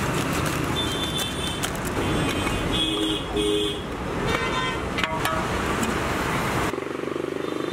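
Steady street traffic noise with several short vehicle horn toots, two quick beeps about three seconds in. The background changes abruptly near the end.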